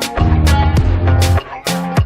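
Background music with a steady beat, bass and plucked notes.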